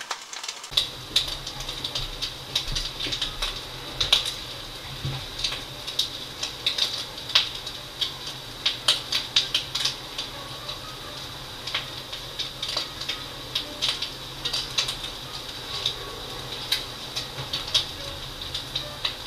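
Scrambled eggs and bacon frying in a skillet: a steady sizzle with irregular crackles and pops, several a second.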